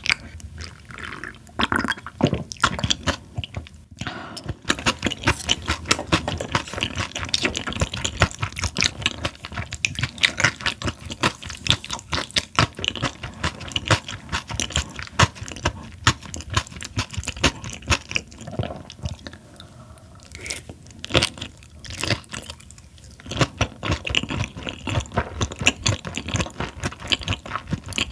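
Close-miked chewing of raw Chinese herring, a dense run of crisp crunches and wet mouth sounds, easing for a few seconds about twenty seconds in.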